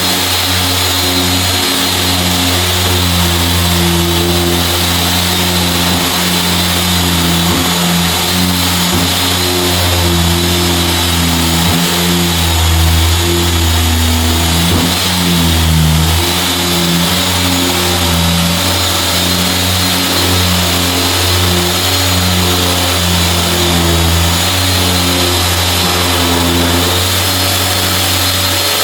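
Floor sanding machine running continuously, its hum shifting slightly in pitch as the load changes, with a steady high whine and a dusty grinding hiss over it.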